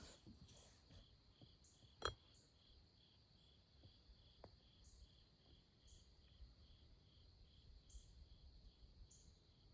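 Near silence with faint, steady insect chirping pulsing about twice a second, and a single short click about two seconds in.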